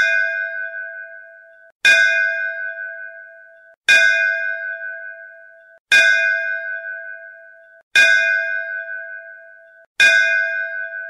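Electronic temple clock sounding a temple bell six times, about two seconds apart, to strike the hour of 6 a.m. Each stroke rings with several clear tones that fade and is cut off just before the next.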